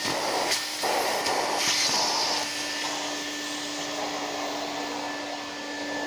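Numatic Henry canister vacuum cleaner running steadily, a hum with a hissing rush of air, sucking up scraps of paper through a crevice tool; a few clicks and rattles come in the first two seconds.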